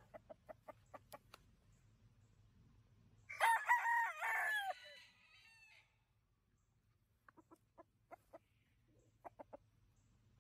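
A gamecock (fighting rooster) crowing once, a loud cock-a-doodle-doo of about two and a half seconds starting about three seconds in. Before and after the crow come quick runs of short clucks.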